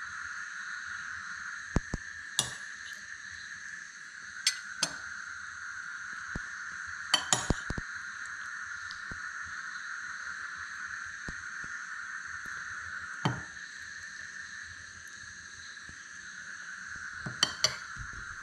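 Cutlery and serving spoons clinking against plates and dishes as food is served out at the table: about ten short, sharp clinks and knocks scattered through, over a steady high-pitched drone.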